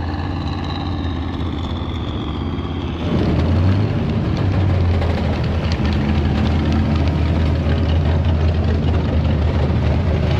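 Vehicle engine running close by at a steady low pitch, growing louder about three seconds in, while a high whine falls away in pitch over the first few seconds.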